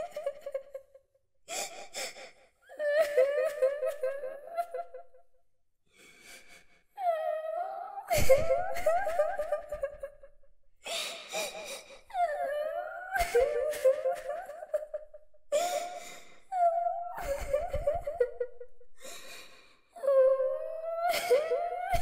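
A little girl crying and weeping: wavering, high sobbing cries in short bouts, broken by sharp gasping breaths.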